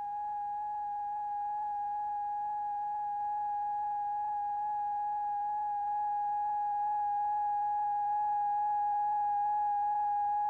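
A single steady, pure electronic tone with faint overtones, growing slightly louder in small steps. It is the audible sine-wave tone from a tone generator that drives a cymatics vibration experiment.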